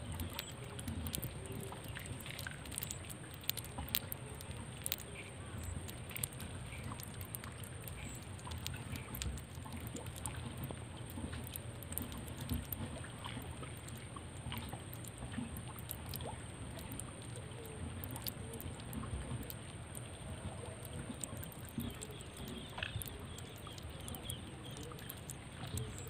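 Outdoor mudflat ambience: a steady low rumble with many faint scattered clicks and crackles and a thin, steady high-pitched whine.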